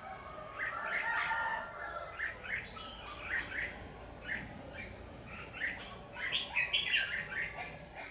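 Red-whiskered bulbuls calling at a trap cage: short chirps repeated one or two a second, broken by fuller song phrases. About a second in there is a longer, lower call of about a second and a half.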